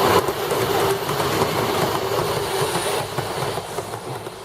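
A train running on rails with a steady rattle and hiss, fading away over the last second or so.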